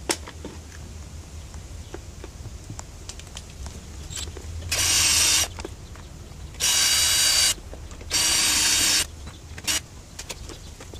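Cordless drill running in three short bursts of under a second each, drilling out the rivets that hold the fan to an old RV roof vent. Light clicks and handling knocks come between the bursts.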